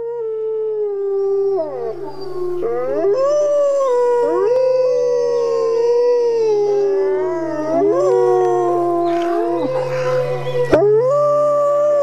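Wolves howling in chorus: several long, overlapping howls at different pitches, each rising and falling slowly, over a steady low hum. A single sharp click comes shortly before the end.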